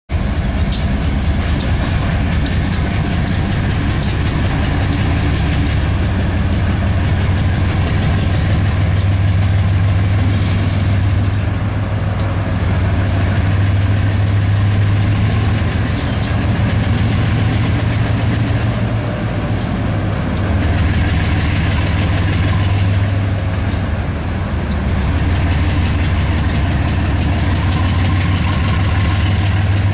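GE B23-7 diesel-electric locomotive's 12-cylinder FDL diesel engine running loudly as the locomotive pulls its train at low speed. A steady low drone that eases off briefly a couple of times in the second half.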